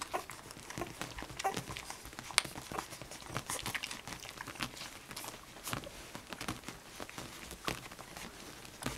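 A litter of nursing puppies suckling at their mother: many quick, soft smacking and sucking clicks, with a few short squeaks.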